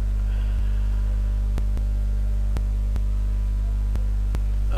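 Steady low electrical hum and buzz, the mains hum of a microphone and amplifier chain, with a few faint, irregular clicks.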